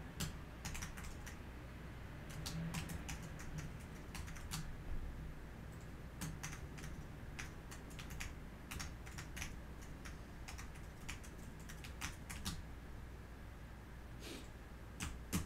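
Irregular clicking of keys being typed on a computer keyboard, with short runs and pauses, over a low steady hum.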